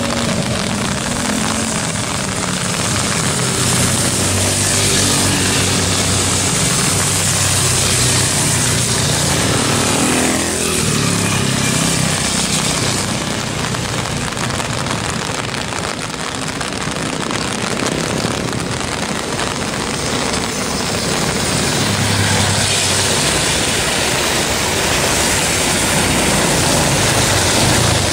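Jakarta–Bandung high-speed railway inspection train running past at speed: a steady loud rush with a low rumble, and a whine that falls in pitch about ten seconds in as it goes by.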